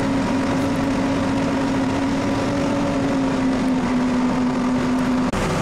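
Farm machinery engine running steadily at a constant speed, a continuous even drone. It cuts off abruptly near the end.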